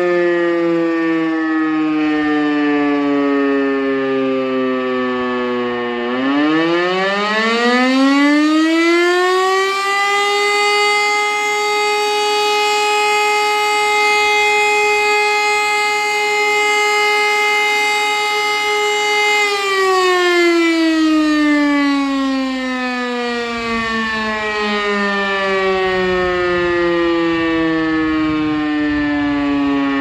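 E57 electromechanical civil-defence siren sounding a test alarm. Its tone first falls as it coasts down. About six seconds in it spins up again, rising slowly over about four seconds to a steady tone held for about nine seconds. It then winds down with falling pitch.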